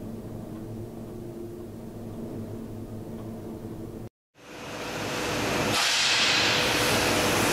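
A steady low hum, then after a short dropout a louder, steady hissing din of factory-floor machinery that fades in over about a second.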